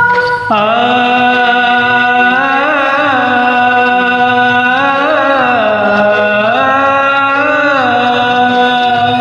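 A man singing one long, drawn-out note with slow ornamental wavers over a karaoke backing track, starting about half a second in.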